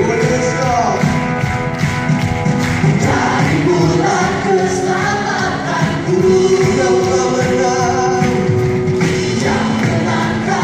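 Live band and a group of singers performing a song through a stage sound system: several voices singing together over drums, electric guitars and keyboards.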